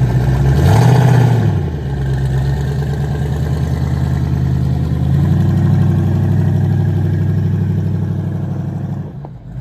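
Twin-turbocharged 454 big-block Chevrolet V8 in a 1971 Camaro, briefly revved about a second in, then running near idle as the car rolls slowly forward. It gets louder from about five seconds in and drops off near the end.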